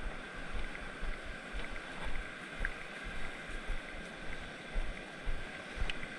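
Beach ambience of ocean surf and wind on a small action-camera microphone: a steady rushing hiss, with soft low thumps about every half second.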